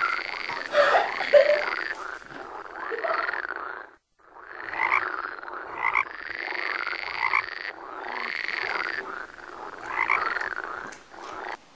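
Frogs croaking: a run of repeated chirping croaks over a steady chorus, with a brief break about four seconds in.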